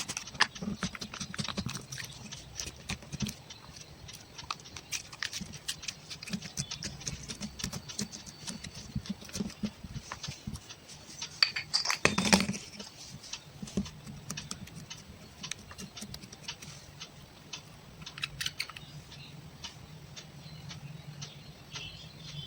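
Slime being squished and worked by hand: an irregular run of small clicks and pops, with a louder, denser cluster of them about halfway through.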